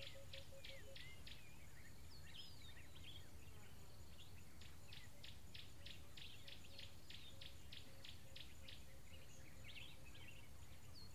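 Wild birds calling: a high, sharp note repeated about five times a second in two long runs, one near the start and one from about four seconds in, with a lower note repeated alongside and scattered short chirps and whistles, over a steady low rumble.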